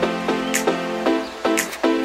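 Background music: a melodic track of held notes with percussion hits.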